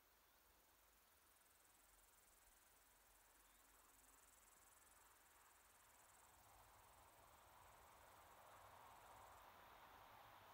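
Near silence with a faint, steady high-pitched insect trill from the grass that starts about a second in and cuts off shortly before the end.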